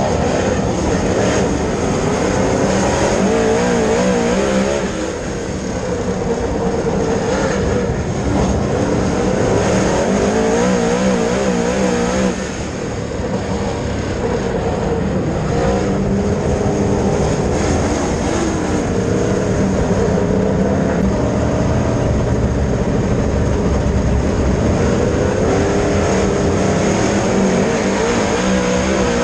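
Dirt late model race car's V8 engine running hard on track, its pitch rising and falling over and over as the car is driven through the corners. The engine briefly eases off about five seconds in and again near thirteen seconds.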